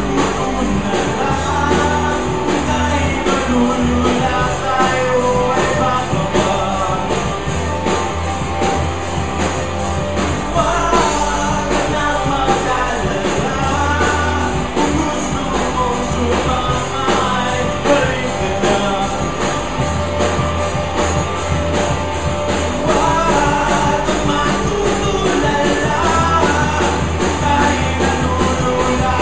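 Live rock band playing: a woman singing lead over electric guitars, bass and a Pearl drum kit, loud and steady throughout.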